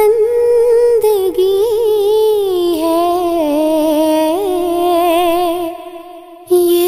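Background music with a smooth, gliding lead melody over a steady low accompaniment; the music dips for a moment near the end.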